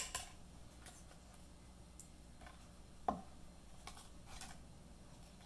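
Faint scattered clicks and scrapes of a steak knife against a gaper clam's shell as the meat is sliced free of it, with a sharp click right at the start and another about three seconds in.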